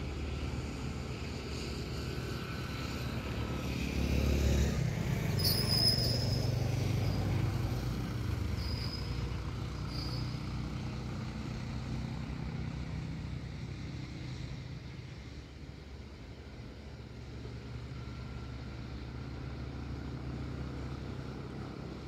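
Road vehicles running on a hill road: a low, steady engine hum that grows louder and peaks from about four to eight seconds in as a vehicle passes, then settles back. A few short high-pitched sounds come near the loudest part.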